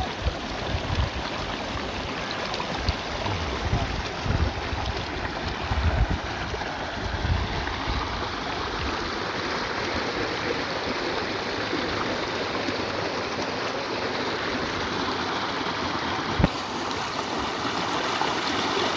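Creek water rushing steadily over rocks, with low rumbles on the microphone through the first half. A single sharp knock near the end.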